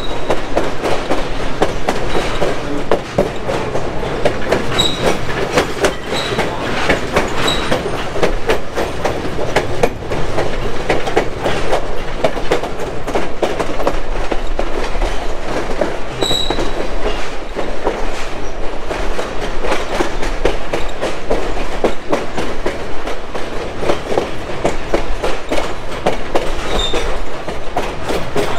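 Passenger railcar wheels rolling over the track: a steady rumble and rattling clatter, with short high-pitched wheel squeaks a few times.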